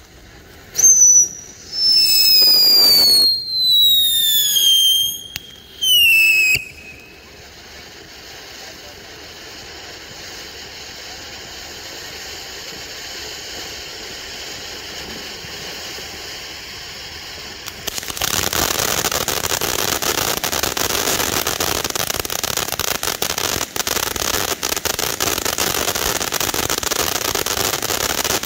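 Phantom Fireworks Iron Eagle fountain burning. It opens with several loud, shrill whistles that fall in pitch over the first six seconds. A steady hiss of spraying sparks follows and slowly grows, and about 18 seconds in it turns into a louder, dense crackling shower.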